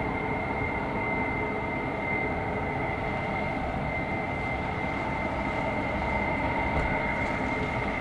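Steady mechanical rumble with a constant high whine over it, unchanging throughout.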